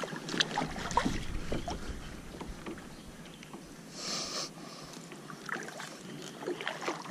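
Kayak paddle strokes dipping and splashing in the water, with small scattered knocks and a brief louder splash about four seconds in.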